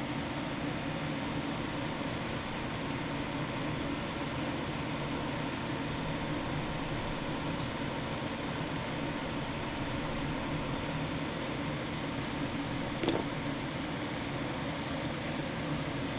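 Steady fan-like whir with a low hum, and a single small click about thirteen seconds in.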